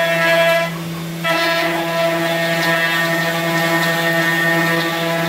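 Haas CNC mill's end mill cutting an aluminium paintball marker body on a 4th-axis rotary: a steady whine from the cutter. It falls away for about half a second near the start, then picks up again.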